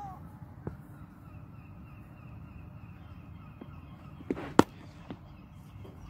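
A cricket bat striking the ball with one sharp crack about four and a half seconds in, just after a softer knock. A short bird call is heard right at the start, over low outdoor background noise.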